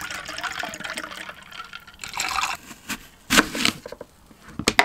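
Sparkling apple juice being poured into a glass to top up a cocktail: a liquid fill sound over the first second or so and again briefly about two seconds in, followed by a louder short noise and a couple of sharp knocks near the end.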